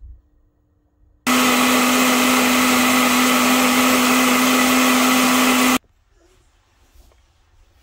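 La Rêveuse personal blender running at full speed, blending fruit and almond milk into a smoothie: a loud, steady motor sound with a constant low hum, starting abruptly just over a second in and cutting off abruptly after about four and a half seconds.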